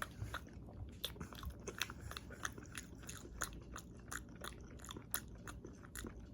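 A person chewing sushi close to the microphone: an irregular run of short, sharp mouth clicks, several a second.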